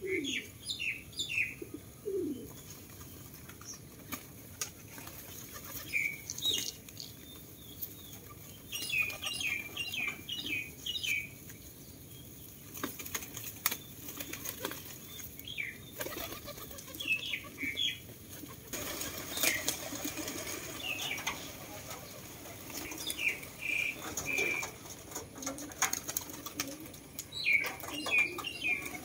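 A flock of feral pigeons flapping their wings as they jostle and take off from the ground, many short wingbeats throughout. Clusters of short high chirping bird calls come and go over it.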